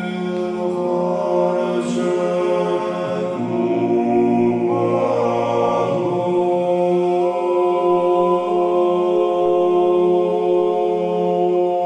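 Unaccompanied sung chant: several voices holding a steady low drone while the upper voices move slowly in pitch above it, with no break.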